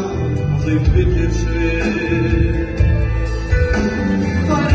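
Live Hasidic Jewish song: two male singers on microphones over an amplified band with a heavy bass line.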